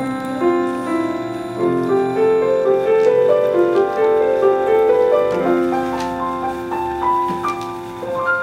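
Schimmel grand piano playing a slow passage of held notes and chords, growing softer near the end.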